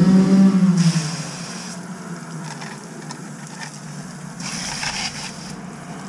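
Dirt bike engine revving, its pitch rising and falling, then dropping away about a second in. After that come two bursts of hissing spray from a garden hose, one about a second in and one near the five-second mark.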